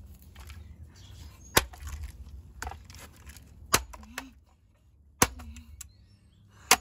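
Four hard blows, about a second and a half apart, struck on the plastic body of a Vax handheld vacuum to break it open and reach the motor.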